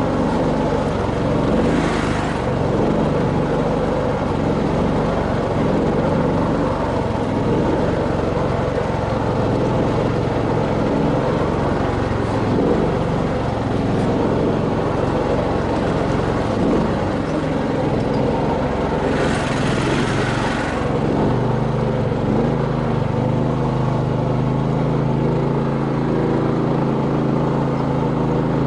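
Engine of a homemade karakat, a low-pressure-tyre all-terrain vehicle, running steadily as it drives, starting off in reverse, with its note settling steadier in the last few seconds. Twice a brief rush of hiss rises over it.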